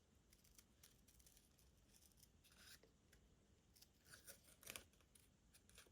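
Faint, sparse snips and rustles of small craft scissors cutting paper.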